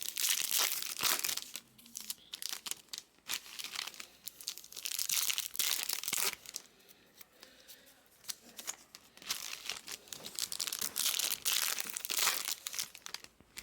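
Foil trading-card pack wrappers crinkling and tearing as Bowman Chrome packs are ripped open, in repeated bursts of crackling with small clicks and rustles between.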